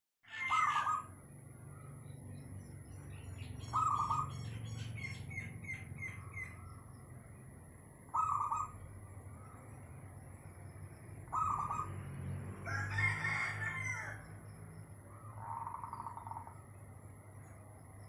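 A rooster crowing amid birdsong: short loud calls every few seconds, runs of quick high chirps, and a longer, fuller crow about thirteen seconds in.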